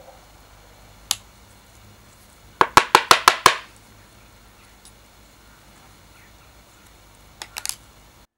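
Rusty old petrol lighter's lever arm being worked by hand, giving sharp metal clicks: one about a second in, a quick run of about seven a couple of seconds later, and three or four more near the end.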